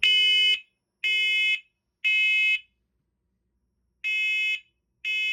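Combination smoke and carbon monoxide alarm sounding under test with loud, high-pitched beeps in the three-beep smoke-alarm pattern. Three beeps come a second apart, then after a short pause the next set of three begins about four seconds in.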